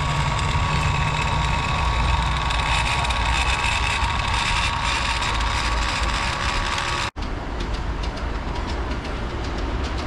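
Steady whirring hum of an electric steam-raising blower on a live-steam model locomotive's chimney, drawing the fire while steam is raised. About seven seconds in it cuts off abruptly and is replaced by the rumble of a ride-on miniature train running along its track.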